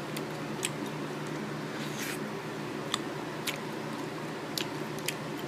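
Scattered small, sharp wet clicks and squishes of swollen, water-soaked raisins, about seven in all, over a steady low hum.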